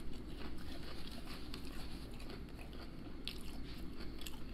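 Close-miked chewing of crispy battered fried food, with small scattered crunches.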